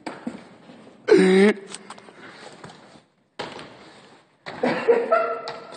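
People's voices. There is a short, loud vocal exclamation about a second in, and the sound cuts out completely for a moment around three seconds. Several people's voices follow near the end.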